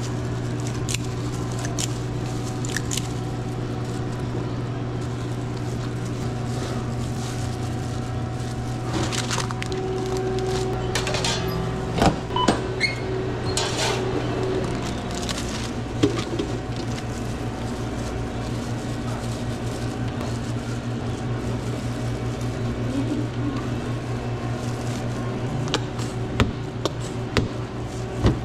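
Steady low hum of commercial sandwich-shop kitchen equipment, with a few loud clunks and knocks about twelve and sixteen seconds in as the countertop speed oven is worked, and light taps near the end.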